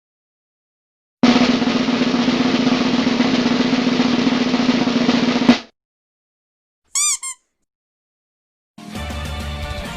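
A snare drum roll sound effect rolls steadily for about four seconds and ends on a single hit. It is followed by two quick high chirps, and music starts near the end.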